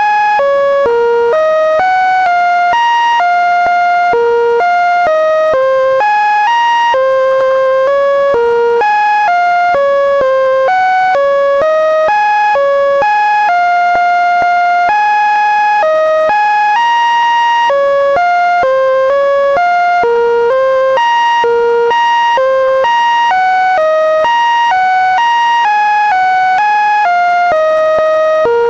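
Computer-synthesized electronic tones playing a wandering melody, one buzzy note at a time, stepping up and down in pitch a few times a second: Linux kernel data turned into notes by a command.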